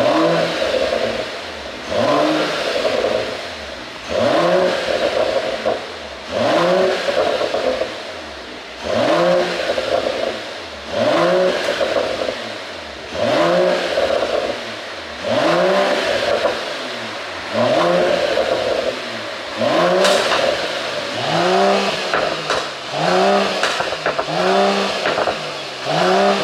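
Mercedes-AMG E53's turbocharged 3.0-litre inline-six, running an ECU pop-and-crackle tune, revved over and over about once every two seconds. Each rev climbs and falls away into crackling pops on the overrun, with sharper cracks near the end.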